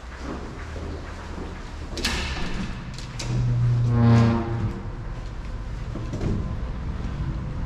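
A metal-framed glass entrance door being opened: a couple of sharp clicks, then a low pitched groan of about a second from the door as it swings.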